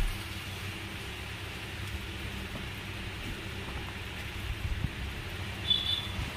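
Soft rustling and crinkling of a dola silk suit fabric being unfolded and handled, with a few light handling noises in the second half, over a steady low hum.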